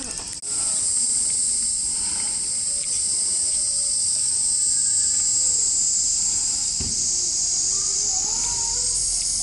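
A steady, high-pitched shrill of insects that does not let up, with faint voices of people talking in the background.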